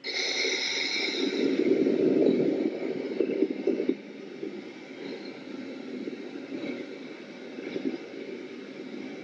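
A dark, scary drone sound effect for horror, from Final Cut Pro's built-in sound-effects library, playing back: a low, noisy drone with a hiss at the start. It is loudest for the first four seconds, then settles lower and steadier.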